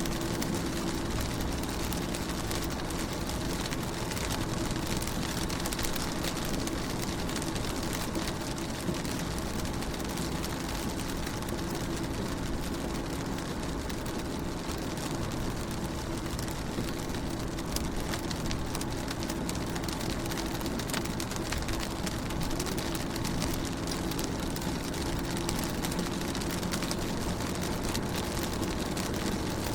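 Rain falling on a car window, an even, unbroken hiss of drops, with a faint steady low hum underneath.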